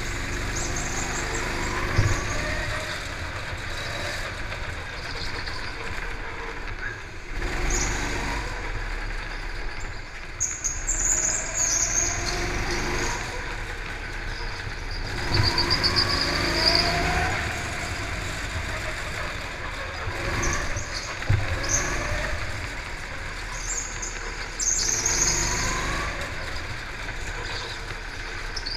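Go-kart's small petrol engine running under the driver, its pitch rising again and again as it accelerates and dropping as it eases off, with brief high-pitched squeals several times.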